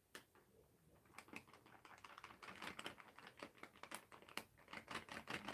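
Faint crinkling and crackling of a plastic retort pouch being handled, a run of small sharp crackles that grows denser from about a second in.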